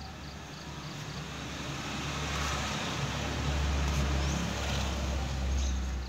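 Low motor-vehicle rumble that swells over the first few seconds, stays loud through the middle and cuts off suddenly at the end.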